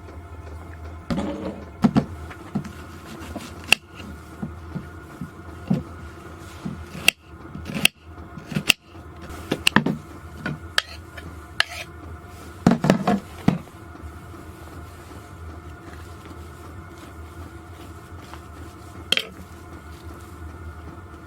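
Irregular knocks and clatters of hard objects being handled, in clusters, over a steady low hum.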